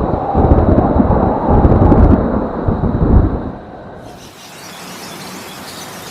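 A 'sound of a planet' space audio clip: a loud, deep rumbling roar like thunder for about three and a half seconds. About four seconds in it gives way to a quieter, brighter hiss.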